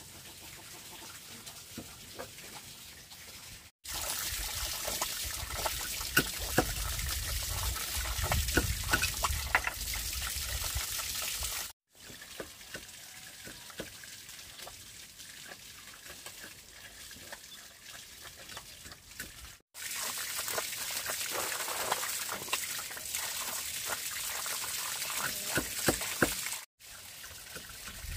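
Water trickling and splashing with many small clicks. Several short clips are cut together, so louder splashing stretches alternate with quieter ones, each starting and stopping abruptly.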